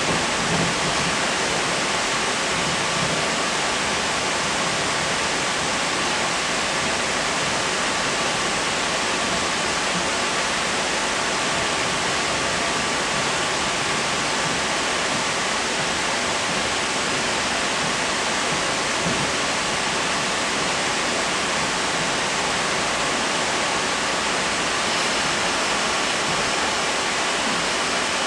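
Steady rushing cabin noise inside a Sydney Trains K-set double-deck electric train carriage on the move, with a faint steady high hum under it.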